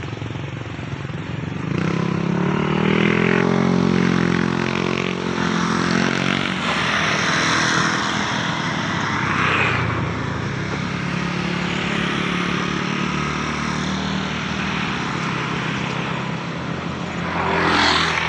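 Motorcycle engine running on the move, its pitch rising and falling with speed, over wind and road rush. A louder rushing swell near the end.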